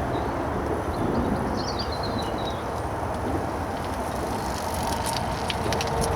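Steady rumble of heavy road traffic crossing the A14 bridge, with a few faint high chirps about two seconds in.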